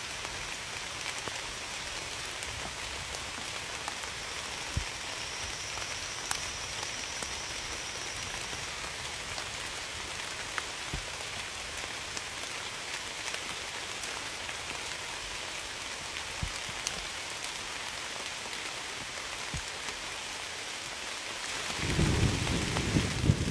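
Steady rain falling, with scattered individual drops ticking on a surface. Near the end a low rumble of thunder swells in.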